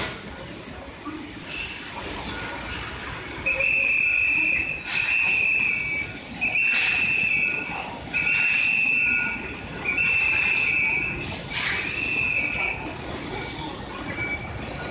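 Electronic warning beeper sounding six long, high beeps in an even rhythm, each about a second long with short gaps, over steady street and building-site noise.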